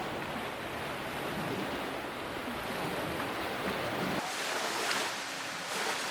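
Steady rushing of wind and water, with wind on the microphone. About four seconds in the sound changes, losing its low rumble and turning hissier.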